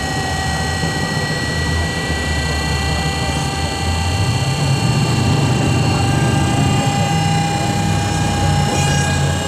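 Drag car engine running loud and steady, a deep rumble under a constant high whine, swelling a little about four seconds in.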